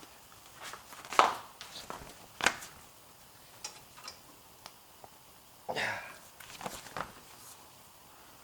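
Scattered sharp clicks and knocks of a wrench working a stuck A/C line fitting, with a short scraping rattle around six seconds in.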